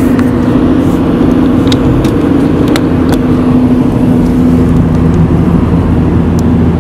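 Car engine and road noise heard from inside the cabin while driving at a steady speed: a constant low hum over a rushing noise, with a few faint clicks.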